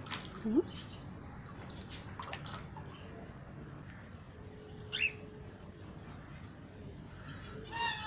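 Caged birds chirping in an aviary: a quick run of high tweets in the first second or so and a single high call falling in pitch about five seconds in, over a faint steady background. A short low rising call about half a second in is the loudest sound.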